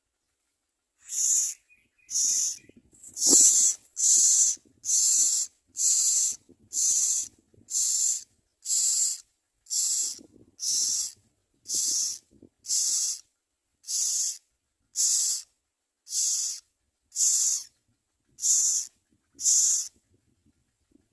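Common myna nestlings' begging calls: a long series of harsh, hissing rasps, about one a second.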